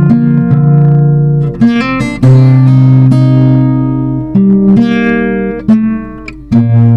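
Acoustic guitar playing a slow instrumental melody over sustained plucked notes and chords, each note ringing on.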